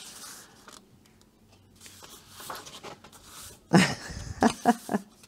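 A paper page of a paperback coloring book being lifted and turned, a soft rustle. About four seconds in comes a short, louder sound from the person's voice, like a throat clear or murmur.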